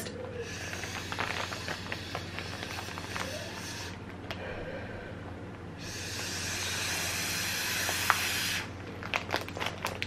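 Air being sucked out of a gallon Ziploc bag of corn cobs through a drinking straw, vacuum-sealing it for the freezer: airy hissing draws, a softer one with small crackles of the plastic bag in the first few seconds, then a stronger steady draw of about three seconds that stops suddenly.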